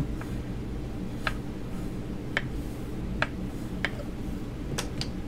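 Light, irregular clicks and taps from polymer clay sheets and tools being handled on a work surface while the sheets are stacked, about seven in all with a quick run of them near the end, over a steady low hum.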